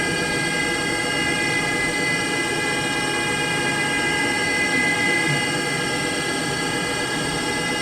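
Haas VF-2D vertical machining center running its program with the 15,000 rpm spindle sped up, a steady whine of many held tones.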